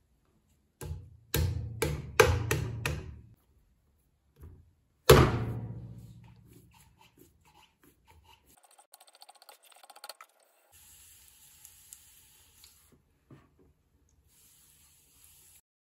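A palm slapping a homemade MDF bat down onto a potter's wheel head about five times in quick succession, pressing it to stick. About five seconds in, a lump of clay lands on the bat with one heavy thud, followed later by a faint steady hiss.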